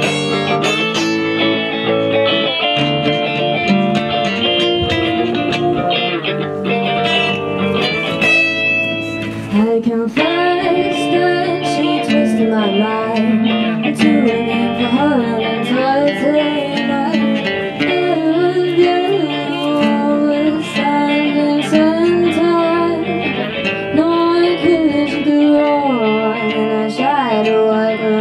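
Live acoustic band music: guitars playing, with a wavering, gliding melody line joining about ten seconds in.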